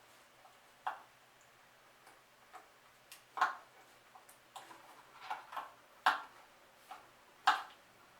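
Irregular clicks and knocks of a screwdriver and screws as a hard drive is screwed into a Synology DS218j NAS, with four louder knocks standing out among smaller taps.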